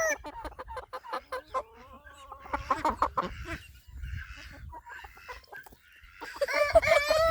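Chickens clucking in a run of short calls, with a louder, drawn-out call starting near the end.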